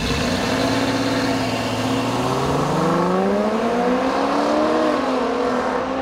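Two SUVs launching hard from a standing start in a drag race, a 5.7-litre HEMI V8 and a supercharged 3.0-litre V6 at full throttle, their engine notes climbing in pitch and dipping as they shift up.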